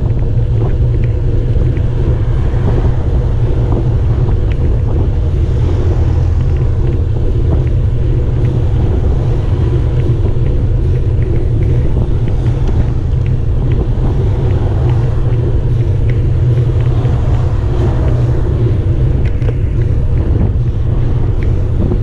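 Wind buffeting the microphone of a handlebar-mounted camera on a moving bicycle, heard as a loud, steady low rumble. Now and then cars going the other way pass by.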